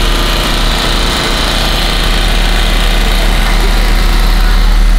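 A small engine running steadily and loudly, with a deep low hum under a bright hiss.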